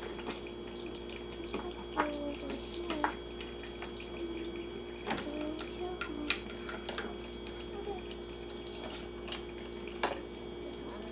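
Toy play sink's faucet running, water trickling into its plastic basin over a steady hum. Plastic dishes clack against the sink and rack several times.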